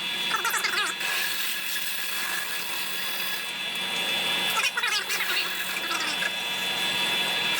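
Electric drill running steadily with an even whine, drilling out the cylinder bolt holes of a motorized-bike engine case for helicoil thread repair.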